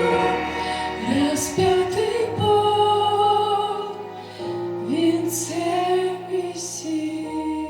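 A slow Christian song: a singing voice holding long, gliding notes over sustained accompaniment chords that change a couple of times.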